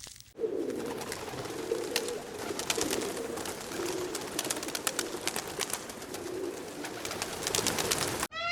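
Pigeons or doves cooing continuously in a low, wavering call, with many short clicks over it. It cuts off abruptly just before the end.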